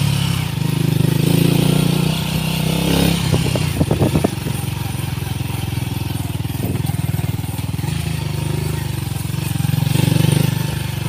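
Motorcycle engine running while riding along a rough dirt track, its level rising and easing with the throttle. A brief run of clattering knocks comes about three to four seconds in.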